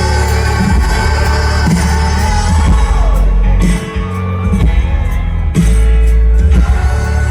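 A live band playing a pop song, with a heavy low bass and sustained pitched tones.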